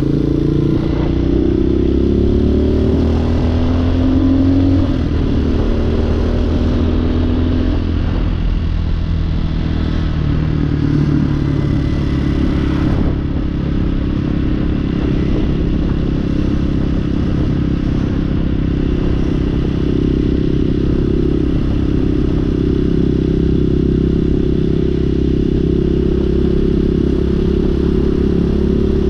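Hawk 250 dual-sport motorcycle's single-cylinder engine pulling away and accelerating, its pitch rising through the first few seconds and again around ten seconds in, then running steadily at cruising speed.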